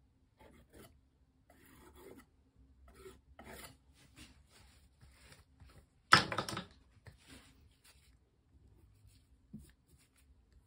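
Palette knife scraping and spreading thick paint across a textured canvas in a series of short strokes, the loudest about six seconds in.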